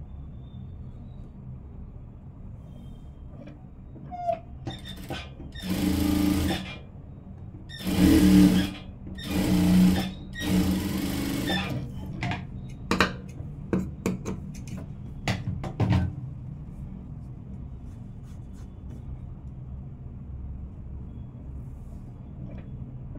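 Jack industrial sewing machine stitching in four short bursts in the middle, over a steady low hum, followed by a scatter of sharp clicks and taps.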